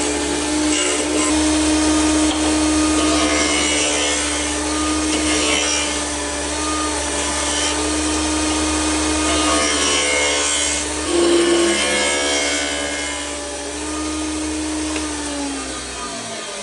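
Wood lathe running with a turning tool cutting a spinning blank of resin and spruce cone, the cutting coming in uneven scraping stretches over the motor's steady hum. Near the end the lathe is switched off and its hum falls in pitch as it spins down.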